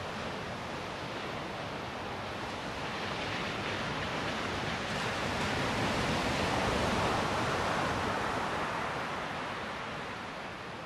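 Surf breaking on a sandy beach: a steady wash of waves that swells to a louder surge about halfway through and then eases off as the water runs back.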